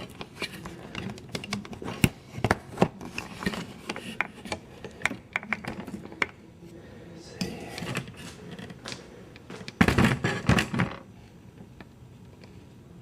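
Close-up handling noise: a string of clicks, taps and knocks, with a louder cluster of knocks about ten seconds in.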